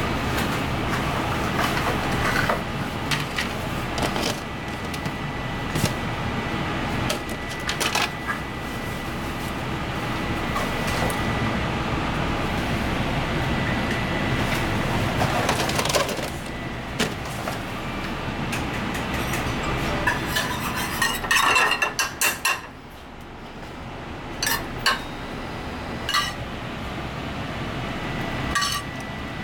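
Chopsticks and a spoon clinking against a ceramic plate and metal tray, with a quick run of clinks about two-thirds of the way through, over a steady background noise that drops after it.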